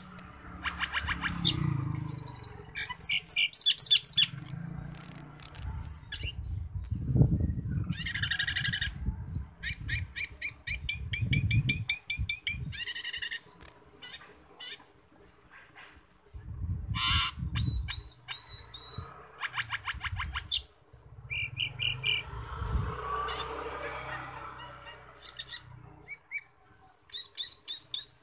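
Cucak keling (Asian glossy starling) calling in a varied, busy series: fast rattling and clicking chatters, short shrill whistles and a few sharp loud clicks, with short pauses between phrases.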